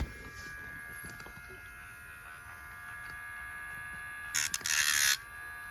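Electric pet nail grinder's small motor running with a steady whine. Near the end come two short, much louder rasping bursts as the spinning diamond drum bit grinds against a dog's nail.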